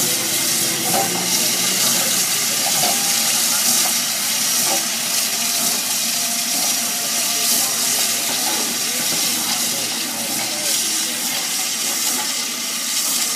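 Santa Fe No. 3415, a 4-6-2 Pacific-type steam locomotive, hissing steam steadily as it moves along the track, easing off slightly near the end.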